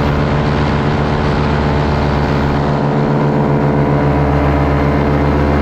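Paramotor engine and propeller running at a steady throttle, one even pitch with no revving.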